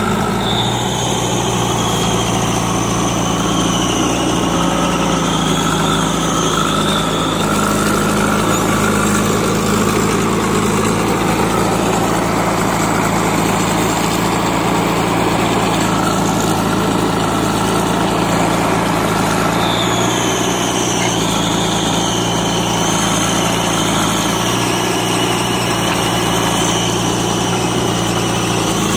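JCB 3DX backhoe loader's diesel engine running steadily at low revs. A high whine sounds over it for the first several seconds and returns about two-thirds of the way in.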